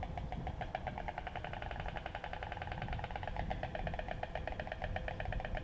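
White storks clattering their bills at the nest: a long, rapid, even rattle of clacks, typical of the storks' greeting display.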